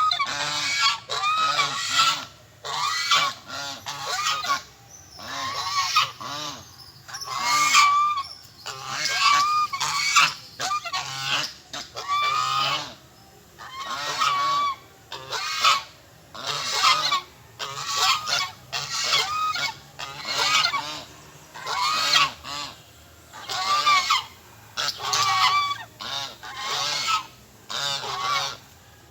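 Large birds giving loud, raucous honking calls in repeated bursts, roughly one a second, with short pauses in between.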